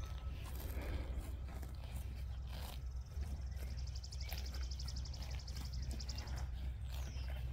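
Hereford steers grazing close by, tearing off mouthfuls of fresh grass in short, irregular rips and chewing.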